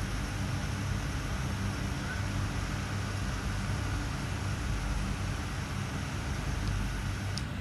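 Steady low machine-like hum with a hiss over it: outdoor background noise, with a faint tick near the end.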